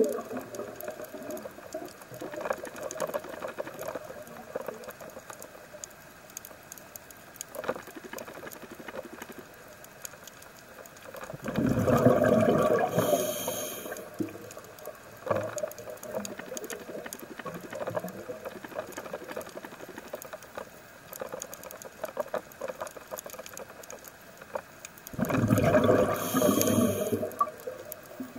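Underwater: a scuba diver's exhaled bubbles rush up from the regulator twice, about twelve seconds in and again a few seconds before the end, each lasting two to three seconds. Between the breaths there is a steady crackle of fine clicks.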